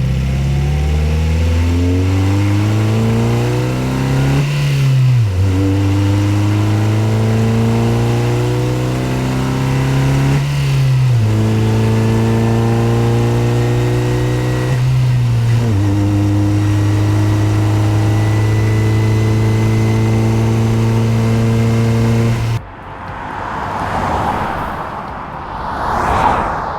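Nissan Qashqai I 1.6-litre petrol four-cylinder accelerating through the gears: the engine note climbs, then drops at three upshifts about 5, 11 and 15.5 seconds in, and then holds a steady pitch at constant speed. Near the end it cuts to two swelling, noisy car pass-by whooshes.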